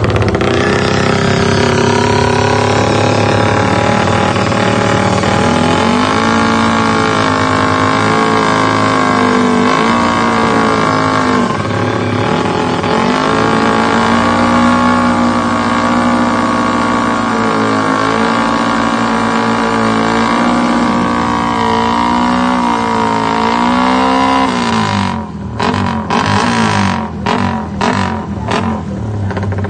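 Racing motorcycle engine revving hard and held at high revs, its pitch dipping and climbing again every second or two as the throttle is worked. Near the end it breaks into short, separate blips of throttle.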